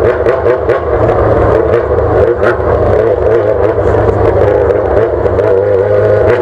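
Yamaha XJ6's 600 cc inline-four running loud and fairly steady through a straight-pipe exhaust with no silencer.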